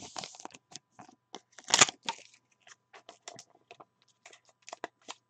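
Trading cards and a clear plastic card holder being handled and set down on a table: scattered light clicks and rustles, with a louder rustle a little under two seconds in.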